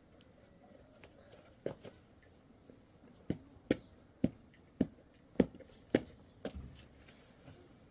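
A series of about eight sharp knocks, roughly two a second, like repeated blows or strikes.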